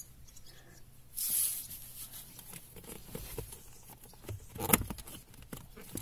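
Hands working the plastic heater blower fan of a Lada Vesta in its housing under the dashboard: rustling and scraping of plastic as it is twisted, with a longer scrape about a second in and a sharp click or knock near the end.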